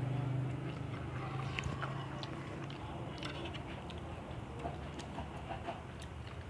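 People eating: chewing, with scattered light clicks of metal forks and spoons against cast-iron skillets.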